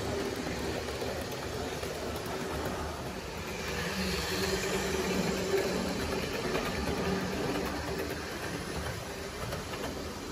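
Lima HST model train power car running on its track with a new CD replacement motor: a steady motor and gear hum, carrying the typical Lima gearing noise, along with the wheels rolling on the rails. It grows a little louder in the middle.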